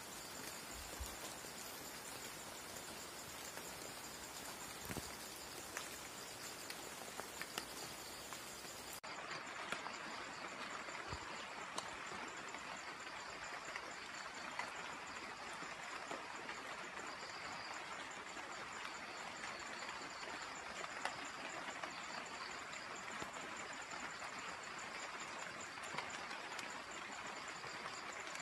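Faint rural field ambience: a steady high-pitched insect trill with a second pulsing insect band below it, over an even hiss, with a few small clicks.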